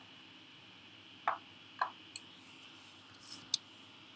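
A few faint, separate clicks of computer keys and a mouse as text is deleted in an editor, about five in all at uneven spacing.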